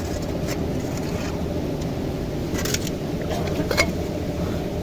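Steady rush of flowing river water, with a few short splashes or knocks about half a second, nearly three and nearly four seconds in.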